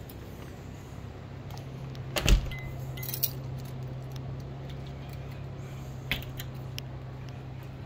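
Light clinking and handling noise, with a sharp knock about two seconds in and a softer one about six seconds in, over a steady low hum.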